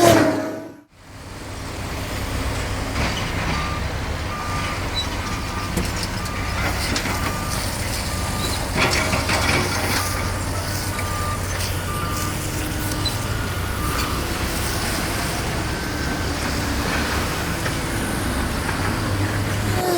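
Excavator's diesel engine running steadily, with its backup alarm beeping a little more than once a second for about ten seconds and a burst of metal clatter about nine seconds in.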